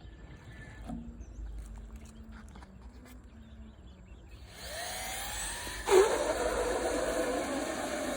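Faint handling clicks, then a cordless vacuum cleaner switched on about halfway through. Its motor spins up with a rising whine and then runs steadily with a rushing hiss. A single sharp knock, the loudest sound, comes just after it starts.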